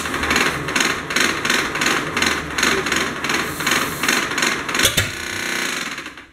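1928 Ford Model A four-cylinder flathead engine being turned over by its starter, chugging about three times a second without catching, with the starter making ugly noises. About five seconds in there is a sharp knock, then a whining tone that fades out as the cranking stops.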